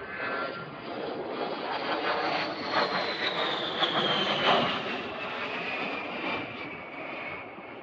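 A-10 Thunderbolt II jet with its twin TF34 turbofan engines flying past: broad jet noise that swells to its loudest about halfway through, with a high whine that glides steadily down in pitch as the jet goes by.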